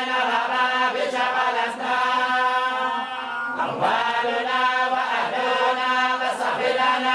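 A group of voices reciting the Quran together in unison, in the Moroccan collective style, with drawn-out chanted syllables on a steady pitch.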